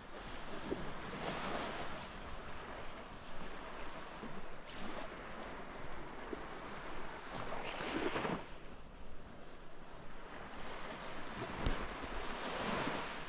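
Small waves breaking and washing up the shore, surging four times, every three to four seconds, with wind rumbling on the microphone.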